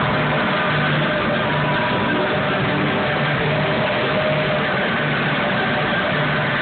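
Steady loud roar of the large stage wind machines that blow the paper snowstorm, with a few held musical tones and a low pulse about every half second faintly underneath.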